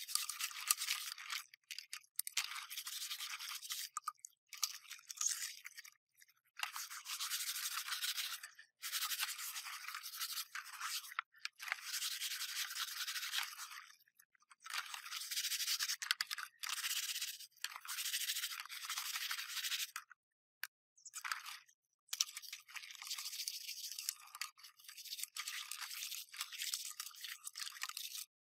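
A brush scrubbing a hard surface in dry, scratchy strokes, coming in bursts of one to two seconds that stop and start abruptly.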